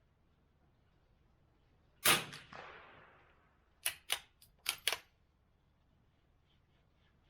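A single .22 LR rifle shot from an Anschutz Model 64MPR, its report trailing off over about a second and a half, followed by a quick run of five metallic clicks as the bolt is worked to chamber the next round.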